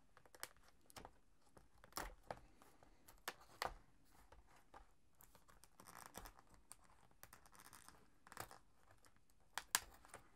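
Scissors cutting the plastic sticker seals on a clear plastic blister pack: faint, scattered snips and clicks, with some crinkling of the plastic.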